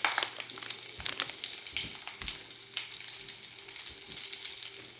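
Mr. Bubble Magic Bath Crackles popping in bath water: a dense, continuous patter of tiny crackles, with a few soft low thumps about a second or two in.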